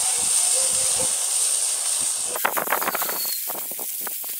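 Thin bacon strips sizzling on a hot grill grate directly over burning charcoal, a steady hiss that turns to a hiss with quick fat crackles about halfway in.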